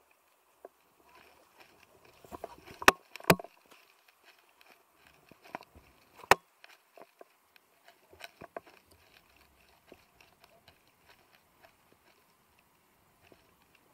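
Scattered light clicks and knocks from handling gear close to the microphone, with three sharper knocks about three, three and a half, and six seconds in.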